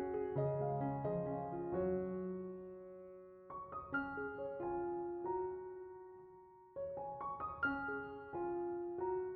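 Gentle background piano music, slow chords struck and left to ring and fade.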